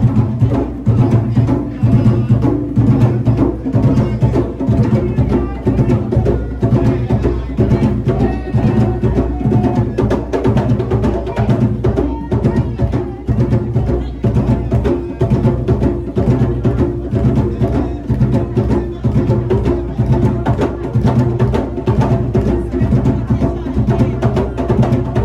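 Music with drums and percussion keeping a steady, driving beat, with woodblock-like knocks over a continuous low bass line.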